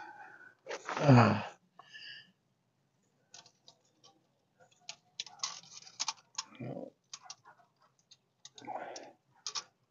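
Scattered light clicks and taps as a tape measure is handled and held against the engine's exhaust port, with a short vocal grunt about a second in.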